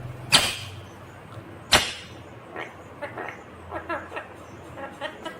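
Green ringneck parrot (rose-ringed parakeet) giving two short, loud, sharp shrieks, then a run of softer chattering calls with bending pitch.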